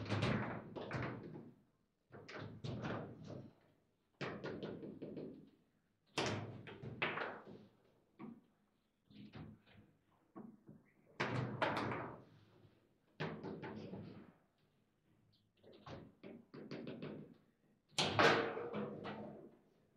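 Table football play: the ball struck by the rod figures and banging against the table walls, with rods clacking, in quick clusters of sharp knocks and thuds every couple of seconds with short pauses between.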